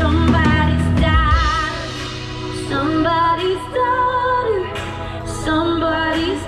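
Live band with a woman singing lead over acoustic and electric guitars and drums, amplified through the stage PA. The low drum and bass sound drops back about a second and a half in, leaving the voice over lighter accompaniment.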